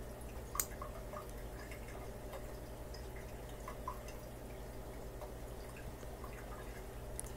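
Home aquarium sound: a steady low hum of tank equipment with small irregular drips and ticks of water, and one sharp click about half a second in, with fainter clicks near four seconds and near the end.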